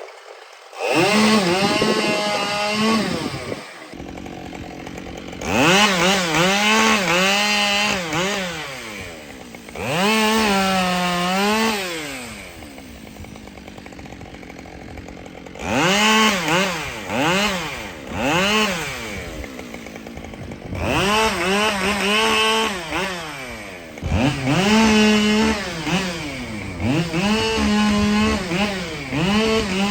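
Husqvarna 572 XP G two-stroke chainsaw bucking firewood logs: about seven cuts, each one revving up, the engine note sagging under load in the wood and rising again, then dropping back to idle between cuts.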